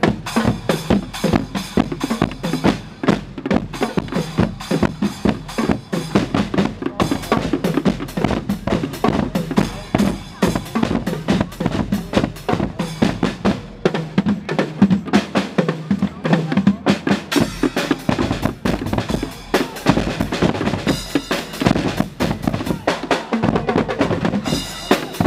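Guggenmusik band playing: sousaphones, euphoniums and trombones over a fast, steady beat of bass drums, snare drum and cymbals.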